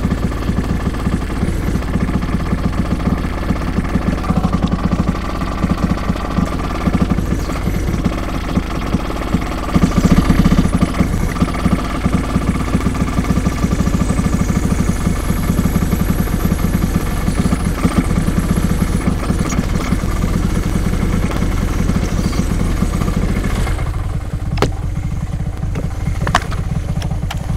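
An engine running steadily while a large log is being split; near the end its low hum drops away and a few sharp knocks sound.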